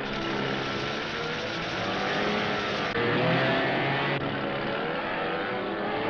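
Busy orchestral cartoon score with many instruments playing at once, shifting abruptly about three seconds in and again about four seconds in.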